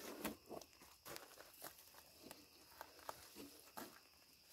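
Faint scattered rustling and light knocks: a person shifting on dry forest soil and leaf litter while handling logs, gloved hands on the wood.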